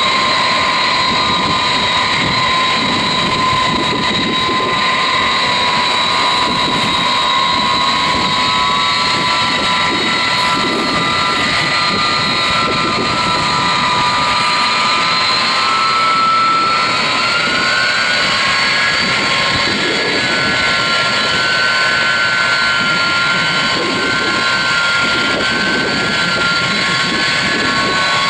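Turbofan engines of a Boeing 747-200F freighter running steadily with a high whine over a rushing noise; the whine rises slightly in pitch about two thirds of the way through as the engines spool up a little.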